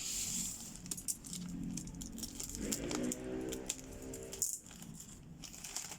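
Packaging tape being pulled off a cardboard keyboard box, with rattling and scraping as the box is handled.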